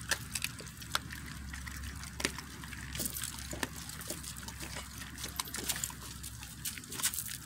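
Several dogs tearing and chewing at a whole raw chicken hanging on a chain, making many irregular sharp clicks and snaps of biting and ripping flesh.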